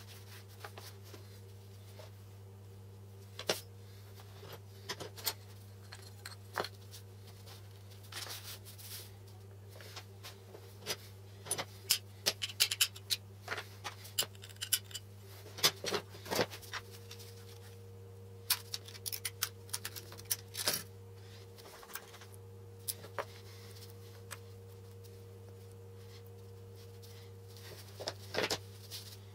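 Printed paper sheets rustling as they are shuffled and laid out on a wooden workbench, with light taps and clacks as small wooden and metal parts are set down on them. Busiest in the middle and again near the end, over a steady low hum.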